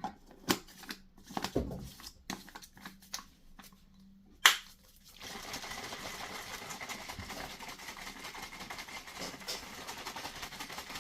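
A milk-and-powder shake being mixed by hand: a few clicks and knocks of the container and sachet being handled, one sharp knock about four and a half seconds in, then about six seconds of fast, steady shaking.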